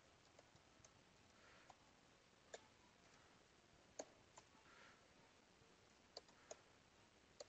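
Near silence with faint, irregular computer keyboard keystroke clicks, about ten of them, the loudest about four seconds in.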